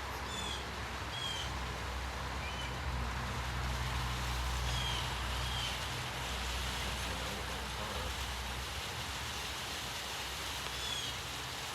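Distant thunder rumbling low, swelling for a few seconds from about two seconds in and fading off, over a steady outdoor hiss. A bird gives short downward-sweeping chirps several times.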